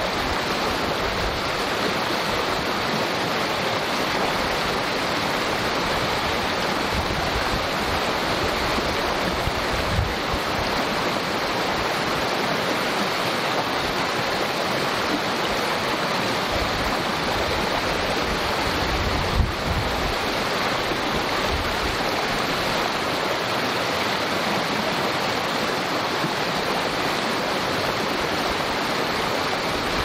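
Small creek rushing and babbling steadily, with two brief low thumps about ten and nineteen seconds in.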